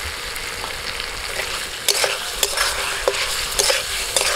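Potatoes and peas in a spiced gravy sizzling in a metal kadai while a steel spatula stirs them. A steady frying hiss runs throughout, and from about halfway through the spatula knocks and scrapes against the pan in several sharp clicks.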